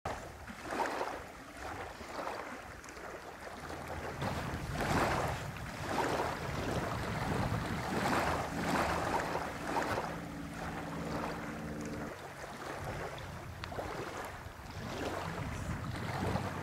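Small waves washing onto a sandy lakeshore in repeated swells, with wind buffeting the microphone. A steady low hum joins in for a few seconds near the middle.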